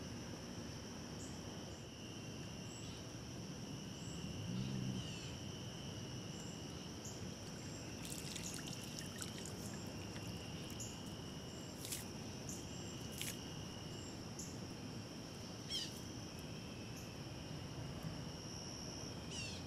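Steady chorus of crickets and other insects trilling, with a few sharp clicks in the middle.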